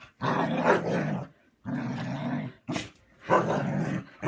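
Husky grumbling in three drawn-out, throaty vocalisations of about a second each, with one quick sneeze about two-thirds of the way through.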